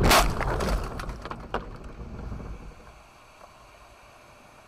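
Car crash heard from inside the car: a loud impact with crunching and flying debris in the first second, then a few knocks. It dies away within about three seconds to a quiet, low hum in the cabin.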